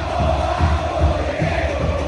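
Background music with a steady, heavy bass beat.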